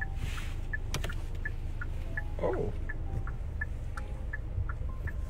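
Steady low rumble of a car's cabin while driving, with faint regular ticking about three times a second.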